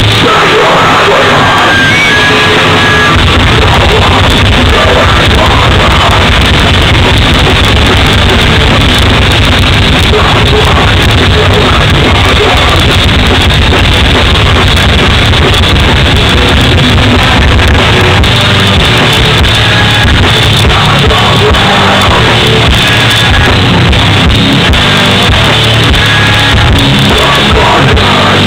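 Hardcore band playing live: loud electric guitars and drums with a vocalist singing and shouting, recorded so close to the stage that the sound sits at the edge of overload.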